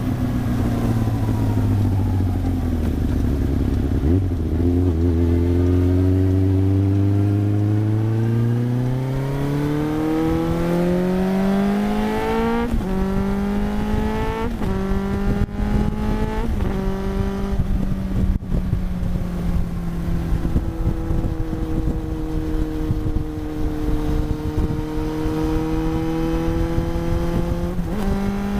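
1993 Yamaha YZF750SP inline-four with a full Black Widow exhaust and its EXUP valve removed, being ridden: the exhaust note falls away at first, then climbs hard under acceleration with three quick upshifts a little before the middle, then holds a steady cruise before picking up again near the end.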